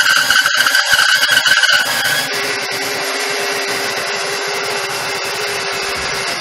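Benchtop bandsaw cutting through a glued-up wooden block, a steady high whine with rasping. About two seconds in it gets a little quieter and lower as the cut eases, and keeps running.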